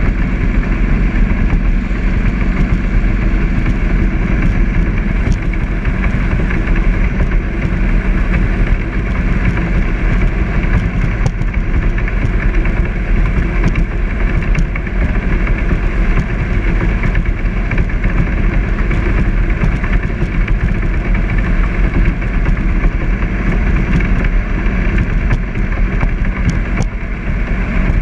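Jet boat under way at an easy cruise, its engine running at a steady pitch and level throughout.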